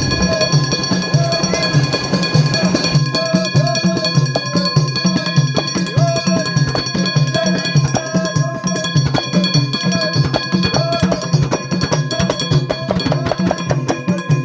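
Background music with a steady drum beat and a short melody that repeats.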